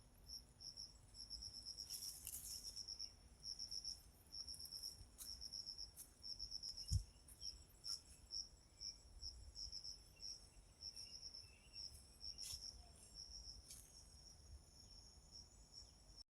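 Insects chirping in high, evenly pulsed runs that keep repeating, with a single low thump about seven seconds in.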